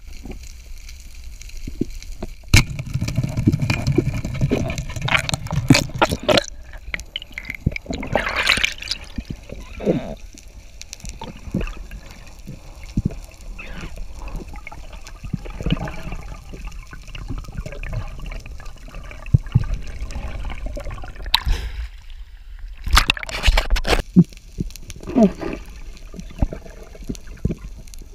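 Water gurgling and sloshing around a camera held underwater, in irregular bursts with a low rumble and scattered clicks and knocks.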